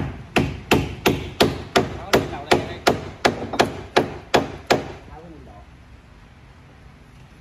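Hand hammer striking in quick, evenly spaced blows, about three a second and some fourteen in all, stopping about five seconds in.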